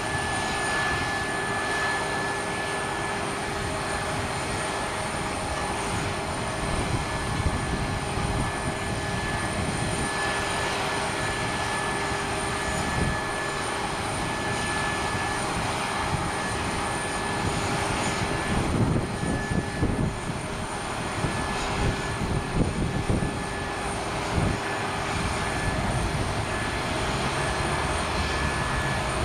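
Airbus A319 airliner's turbines whining steadily at the stand, a continuous hiss with several constant high and middle tones, as for start-up before pushback. An uneven low rumble swells and fades about two-thirds of the way in.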